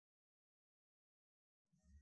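Near silence: a dead-quiet gap, with a faint trace of background noise coming back near the end.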